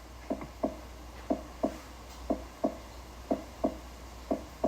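Normal heart sounds, a steady lub-dub at about one beat a second. Each beat is a pair of short thuds a third of a second apart, the first and second heart sounds made by the heart valves closing.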